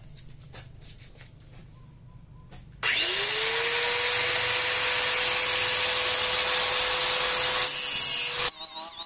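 Bosch GWS 060 angle grinder on a cutting stand switched on about three seconds in, its motor spinning up to a steady whine, then its cut-off disc biting into steel rebar near the end before the sound cuts off abruptly.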